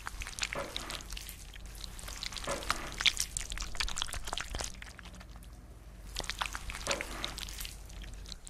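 Foley for disembowelment: wet squelching and crackling as buttered food is squished and torn by hand, with irregular clicks throughout.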